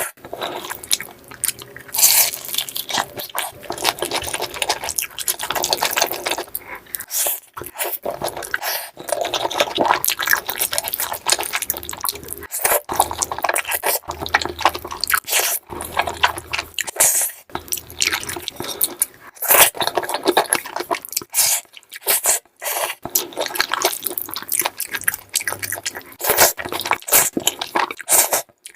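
Close-miked eating sounds: wet chewing and mouth smacking, with crunches and scrapes, and a few brief sharp breaks.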